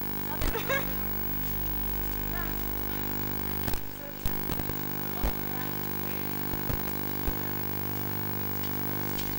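Steady electrical hum with many overtones on the sound track. A brief voice sounds in the first second, and a handful of sharp clicks are scattered through the middle.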